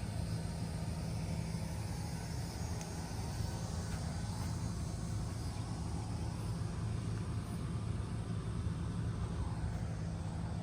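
2020 Carrier Comfort 25HCE4 two-ton heat pump running steadily in cooling mode, its Copeland scroll compressor giving a steady low hum under an even rushing noise.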